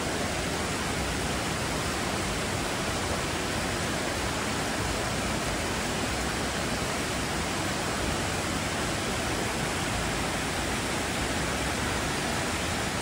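A forest stream and small waterfalls, water flowing over rocks in one steady, even noise.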